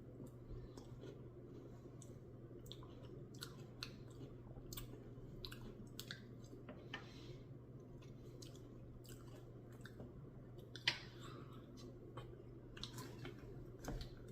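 Faint close-up chewing of a mouthful of Oreo dirt Blizzard ice cream, with small irregular clicks and smacks of the mouth, one louder near the end.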